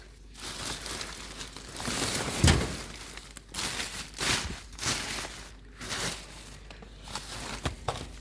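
Rubbish being rummaged through by hand: irregular crinkling and rustling of bags and packaging, with a thump about two and a half seconds in.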